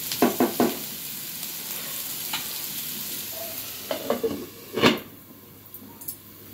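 Chopped onions sizzling in oil in a nonstick frying pan, with a wooden spatula knocking and scraping against the pan a few times. Just before five seconds in, a glass lid clinks down onto the pan and the sizzling turns much quieter.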